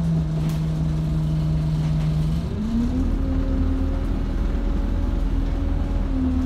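Single-decker bus engine and drivetrain running under way, heard from inside the passenger saloon. It makes a steady hum that rises in pitch about two and a half seconds in and then holds at the higher note.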